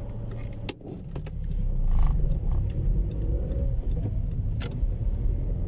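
A moving car heard from inside its cabin: steady low road and engine rumble that grows louder about two seconds in, with a couple of light clicks.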